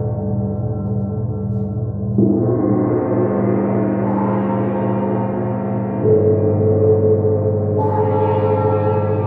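Gongs struck with soft felt mallets in a sound bath: a small hand-held gong and large gongs on stands ringing on together in a dense, sustained wash of tones. Fresh strikes come in about two seconds in, about six seconds in with a deeper tone, and again shortly after, each adding to the lingering resonance.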